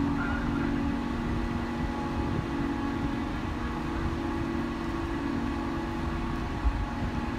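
Steady low hum of a berthed large car ferry's onboard machinery, with a few constant tones over it. A single short low thump near the end.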